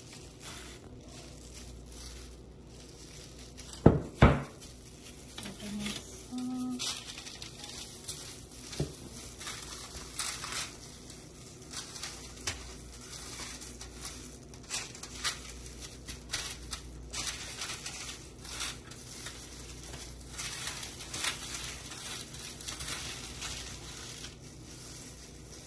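Aluminium foil crinkling and thin plastic gloves rustling as gloved hands work chopped herbs onto a fish lying on the foil, in irregular crackles. Two sharp thumps about four seconds in are the loudest sounds.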